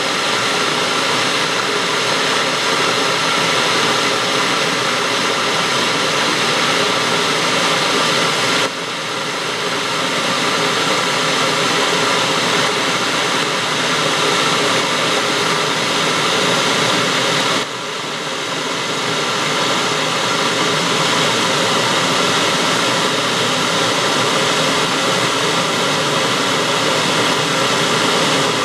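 WMF 3 kW electric kettle heating a litre of water: a steady hiss and rumble from inside as steam bubbles form on the hot element and collapse in the still-cooler water, the stage before a rolling boil. The level drops suddenly twice and climbs back each time.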